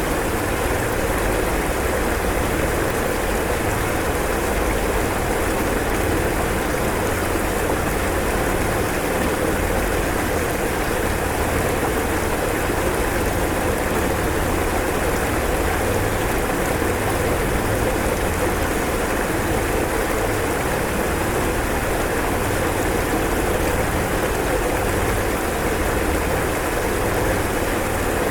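Floodwater rushing steadily, an even, unbroken roar of moving water with a low rumble underneath.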